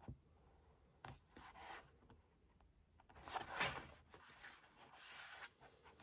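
Paper rustling as a book page is turned, the loudest swish about three seconds in, with a light knock at the start and brief rustles around a second in.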